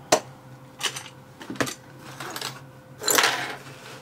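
Metal clicks and knocks as a rim lock cylinder is handled and freed from a bench vise, with a longer scraping clatter about three seconds in.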